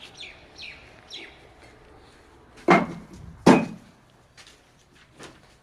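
Two loud sharp knocks, under a second apart, followed by a few fainter taps, after a run of short falling bird chirps.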